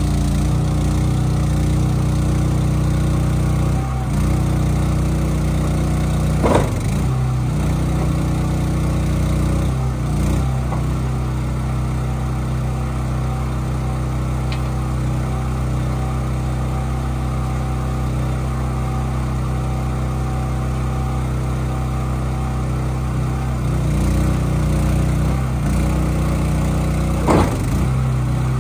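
An engine running steadily at constant speed, with a short louder surge about six and a half seconds in and another near the end.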